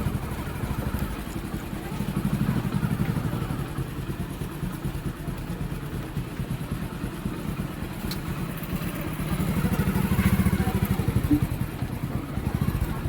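Hero Passion Pro motorcycle's single-cylinder four-stroke engine running, with engine speed rising and falling twice. It runs without the 'gharr gharr' rattle on clutch release, now that new clutch plates are fitted.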